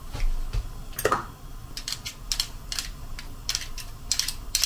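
Metal garlic press and a metal spoon clicking and scraping as crushed garlic is squeezed out and scraped off the press into a pot. A quick run of sharp clicks and clinks, one with a brief ring about a second in.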